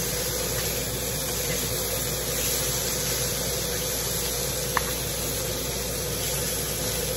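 Vegetables sizzling in a hot frying pan as they are turned with metal tongs: a steady hiss, with one light click about five seconds in.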